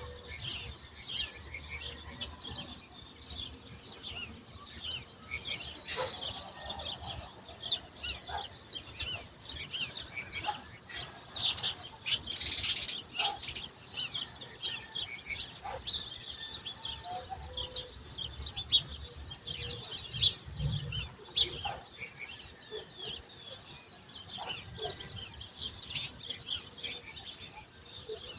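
Many small birds chirping and calling together in a sunrise chorus, with dense, overlapping short chirps throughout. About twelve seconds in comes a louder, noisier burst lasting a couple of seconds.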